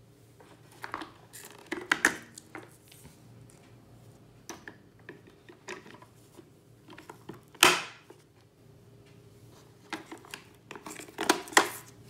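Hand-handling noises from a Hoover Spin floor polisher's plastic bristle brush plates and pad backing plates being worked off the drive hubs: scattered clicks, taps and scrapes, with one louder, sharper sound about seven and a half seconds in.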